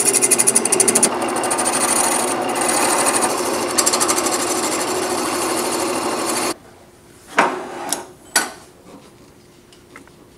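Gouge cutting a spinning wooden duck call blank on a wood lathe: a loud, rapidly chattering scrape that stops abruptly about six and a half seconds in. Two sharp knocks follow, about a second apart.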